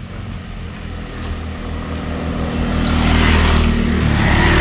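A motorbike engine approaching and passing close by, getting steadily louder and loudest in the last second or two.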